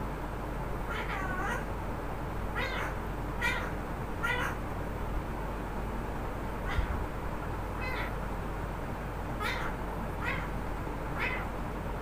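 Green parakeet in its cage calling out about ten short, high-pitched calls, some with a dip and rise in pitch, spaced a second or so apart with a pause in the middle. The title takes these calls for the bird saying the name "Amara".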